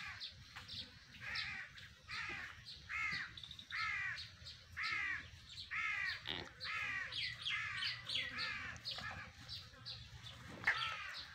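Crows cawing over and over, a busy run of short harsh caws at about two a second.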